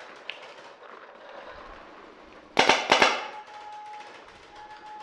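Paintball marker firing a quick, loud burst of shots about two and a half seconds in, several cracks within half a second.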